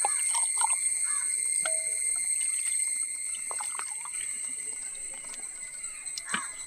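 Small wet pouring and dribbling sounds as milk and thick curd are ladled from one clay pot into another, with a few light knocks of the metal ladle against the clay, the sharpest near the end. A steady high-pitched whine runs underneath.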